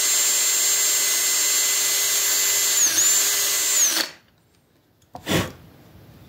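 Cordless drill spinning at speed while drilling holes for connector pins in the whirligig figure's cut-out arm. The whine dips briefly about three seconds in, then the drill stops about a second later. A short knock follows about a second after that.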